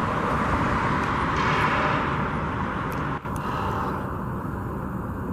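Steady outdoor road-traffic noise with a low rumble, broken by a brief drop a little after three seconds.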